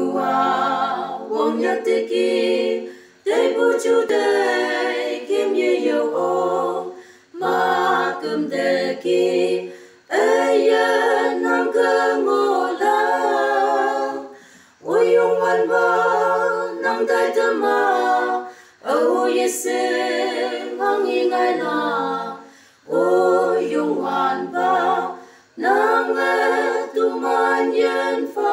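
Unaccompanied voices singing a slow song in Konyak, in harmony. They sing in phrases of about three to four seconds, with short breaks between them.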